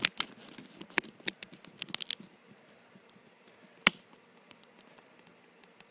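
Handling noise: a quick run of sharp clicks and rustling at the start, a few more scattered clicks over the next two seconds, then one loud single click about four seconds in.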